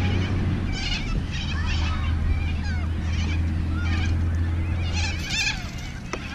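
Birds calling again and again, short wavering cries, over a steady low hum that cuts off about five seconds in.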